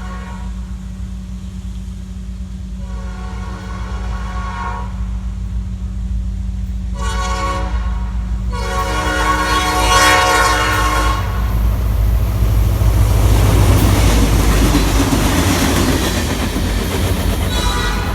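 Nathan P5 air horn on a Norfolk Southern diesel locomotive blowing the grade-crossing signal, long, long, short, long, the last blast the longest. The locomotive's engine rumble and the train's wheel noise then swell as it passes close, and the horn sounds again near the end.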